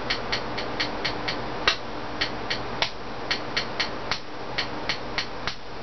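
Rapid light hammer taps, about three or four a second, with a few harder blows, driving a tight-fitting pin into the plastic bolt sled of a Nerf Longstrike because the pin's slot is too narrow.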